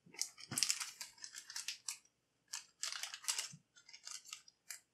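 Clear plastic zip-lock bag crinkling as it is handled, in short irregular bursts.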